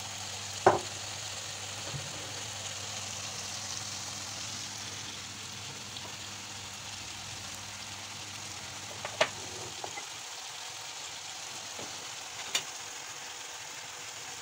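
Steady sizzle of diced chicken breast frying in oil, mixed with water boiling in the pasta pot. Three sharp clicks stand out, the loudest about a second in and the others near the end.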